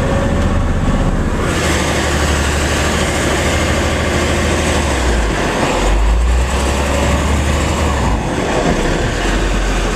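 Garbage truck's diesel engine running steadily under load as the truck ploughs through deep snow drifts, over a constant noise of the truck and snow. A louder rushing noise comes in about one and a half seconds in.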